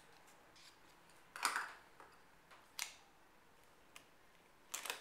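Small clicks and scrapes of the old hard drive being worked out of a MacBook's drive bay: a scrape about a second and a half in, a sharp click near three seconds, and a couple of quick clicks near the end.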